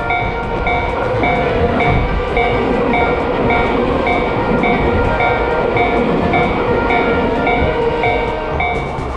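Japanese railroad crossing warning bell ringing its 'kan-kan' tone about twice a second while a train passes with a steady rumble.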